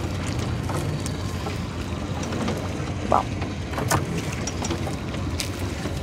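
Small boat's engine running steadily at a low hum, with a few light knocks and clicks from handling in the boat.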